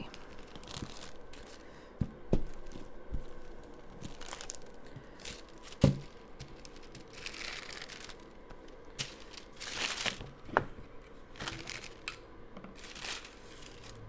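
Hands working a sheet of air-dry clay with a small roller pin: a few light knocks and several short rustling swishes.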